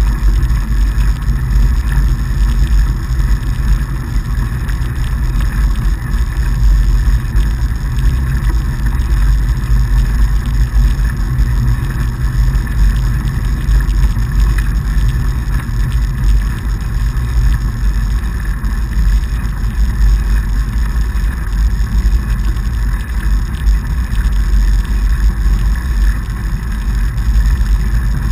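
Steady low rumble of a fatbike rolling over packed snow, heard through a handlebar-mounted action camera: tyre noise and wind on the microphone.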